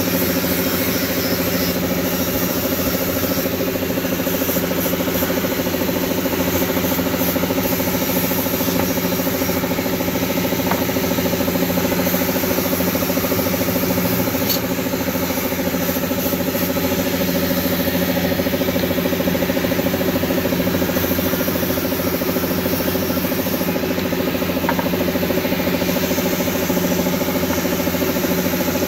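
A machine running steadily at constant speed: a continuous, even drone that does not change.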